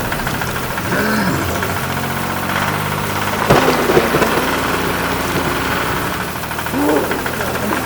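Mini tractor engine running steadily with a rumbling noise and a few short rising-and-falling pitch sweeps, louder for a moment about halfway through.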